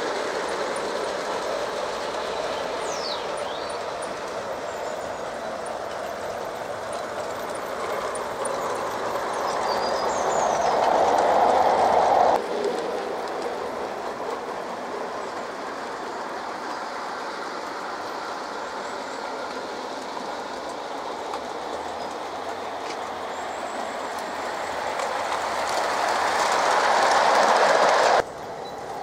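LGB garden-scale model train, a battery-powered Corpet-Louvet loco hauling coaches, rolling along the track with a steady noise of wheels on rail. It swells as the train comes close and then cuts off suddenly, about twelve seconds in and again near the end.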